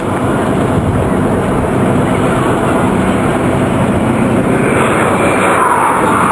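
A Supermarine Spitfire's Merlin piston engine and a BAE Hawk jet flying past together, a steady engine drone. A rushing jet noise grows louder over the last couple of seconds.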